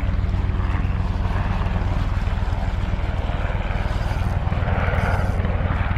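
Steady low engine drone.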